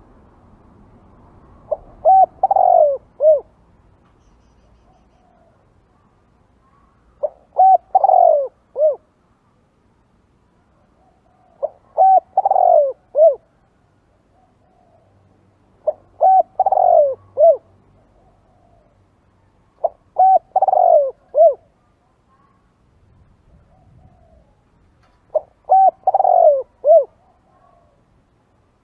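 Spotted dove cooing: a short phrase of a few notes with one louder, longer note in the middle, repeated six times about every four to five seconds.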